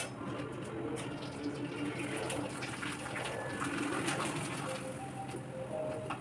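Potato chips frying in hot oil in a kadai, a steady sizzle with a few light clinks of a spatula against the pan.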